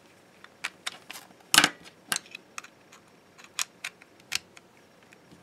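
Sharp metallic clicks and taps as a BNC male connector is pushed onto a handheld radio's BNC jack and its bayonet sleeve twisted to lock, with one louder clack about a second and a half in.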